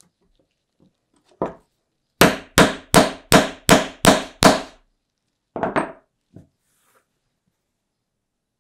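Hammer striking a metal grommet-setting tool to set a grommet through canvas on a wooden board: one blow, then seven quick, loud blows about three a second, flaring the grommet post over its washer, followed by a few lighter knocks.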